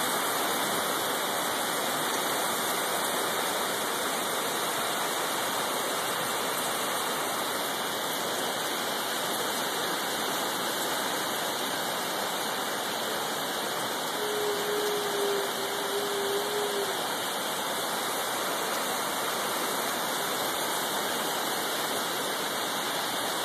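Heavy hurricane rain falling in a steady, even hiss. A short low steady tone sounds for a few seconds about two-thirds of the way through.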